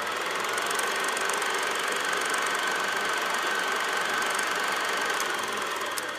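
Film projector running: a steady mechanical whirr with rapid fine ticking and a faint steady whine.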